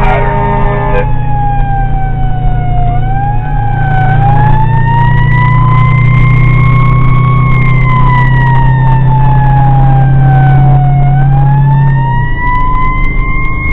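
Fire engine siren wailing, its pitch slowly rising and falling over several seconds at a time, over a steady low drone that cuts off near the end.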